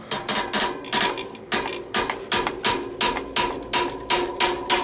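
Torque wrench on a cassette lockring tool, ratcheting clicks at about three or four a second as the lockring is tightened down, each click with a short metallic ring.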